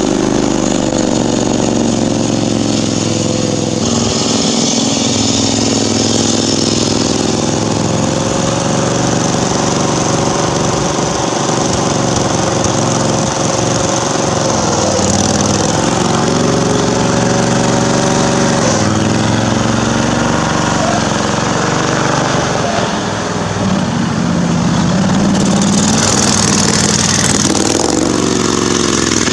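Garden tractor engine running hard under load, its pitch rising and falling as the throttle and load change while the tractor is driven through mud.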